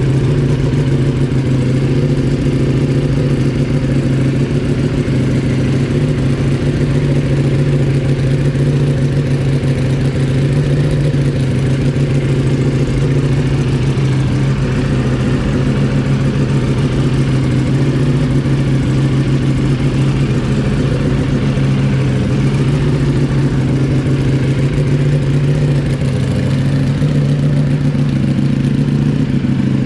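Ducati Panigale V4 S V4 engine idling steadily through a Termignoni titanium full race exhaust, loud and even.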